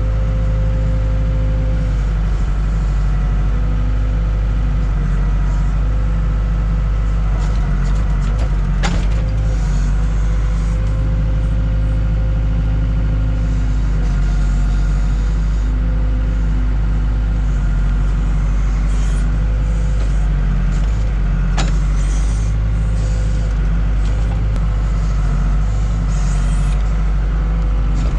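Case 580K backhoe's diesel engine running steadily as the machine is worked, its pitch dipping and rising slightly under load, with two sharp knocks about a third and three quarters of the way through.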